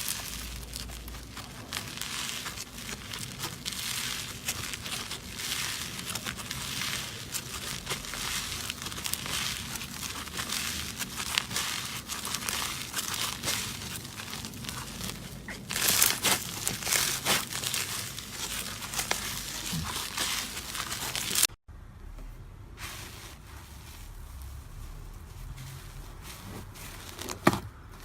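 Slime being squeezed and worked by hand, giving a dense run of crinkly crackling and small pops. About three-quarters of the way through it cuts off abruptly and continues more quietly.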